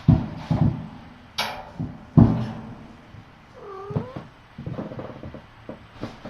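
Kitten mewing once near the middle, among several dull thumps and rustling, the loudest thump about two seconds in, with a brief high squeak just before it.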